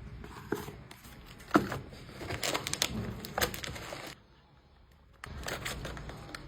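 Packaging being handled: crinkly rustling with sharp clicks and taps, the loudest click about a second and a half in. The sound cuts out abruptly for about a second near the middle, then the rustling resumes.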